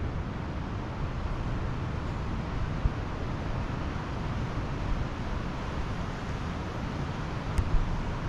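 Pacific Ocean surf washing steadily onto the beach, with wind buffeting the microphone and a brief click near the end.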